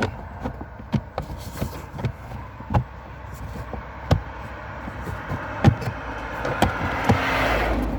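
Plastic fuse panel cover being fitted back into a 2015 Buick Encore's interior trim: a string of separate clicks and knocks as it is handled and pushed into place, with a rising scrape of plastic rubbing near the end.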